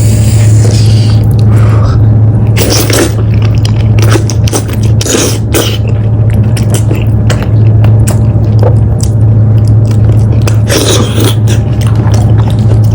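Close-miked chewing and biting of boiled sheep's head meat, with irregular wet, crunchy mouth noises, strongest about three, five and eleven seconds in. A steady low hum runs underneath.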